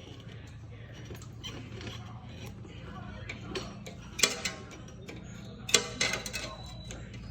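Tools clanking and clinking against metal suspension parts: a sharp clank about four seconds in and a quick cluster of clanks just before six seconds, over a steady low hum.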